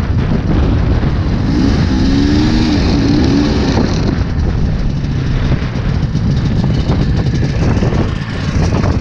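Ski-Doo Formula S snowmobile's two-stroke engine running, its pitch wavering up and down for a couple of seconds near the start, over a loud steady low rumble.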